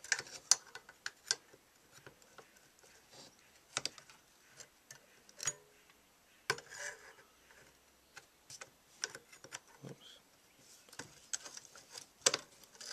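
Irregular small metal clicks and taps of a screwdriver working the synchronisation adjustment screw on a pair of motorcycle carburetors, turning it down to close one throttle butterfly to match the other.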